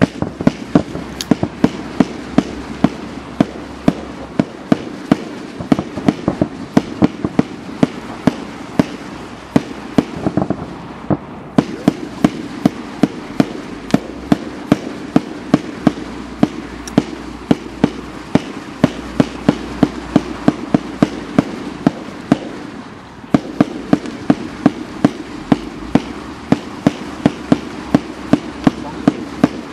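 A 380-shot, 0.8-inch fireworks cake firing red-tipped silver crackling comets in a zipper sequence: a steady run of sharp launch thumps, about two to three a second, over continuous crackling.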